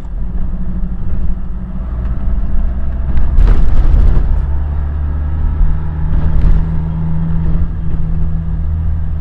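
Car engine and road noise as picked up by a dashboard camera: a steady low hum, with a louder rushing swell about three and a half seconds in.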